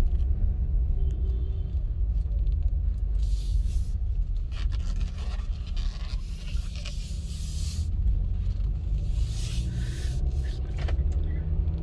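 Car engine and road noise heard from inside the cabin while driving, a steady low rumble with a few brief swells of hiss.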